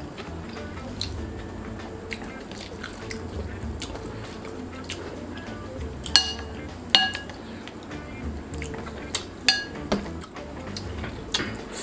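Hand eating rice from a stainless steel plate: fingers scraping and tapping the plate, with about five sharp, ringing metallic clinks in the second half. Quiet background music runs underneath.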